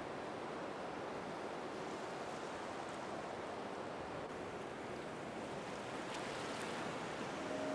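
Faint, steady rush of water noise with no distinct events: underwater ocean ambience.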